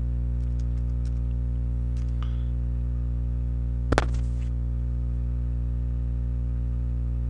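Steady electrical hum with a stack of harmonics over a recording of computer keyboard typing. There are a few soft key taps in the first couple of seconds, and one sharper, louder knock about four seconds in.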